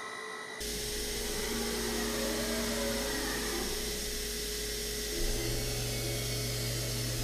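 DATRON M8Cube high-speed milling spindle running a foam-cutting end mill through polyurethane foam: a steady whirring hiss with a faint steady tone. The sound shifts abruptly about half a second in, and a low hum joins about five seconds in.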